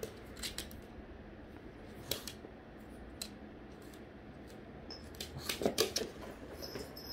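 A pug and a kitten play-fighting on a hardwood floor: scattered sharp clicks and scuffles of paws and claws, with a brief flurry of louder ones about five and a half seconds in as they scramble apart.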